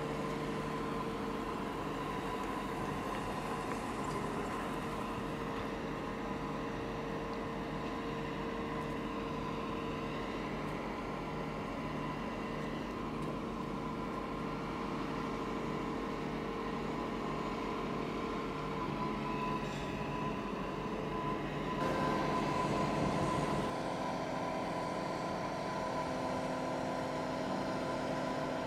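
The Cummins diesel power pack of a Goldhofer PST/SL-E self-propelled modular trailer running steadily under load as it moves the transition piece, a constant hum with a high tone running through it. The sound shifts about three-quarters of the way through.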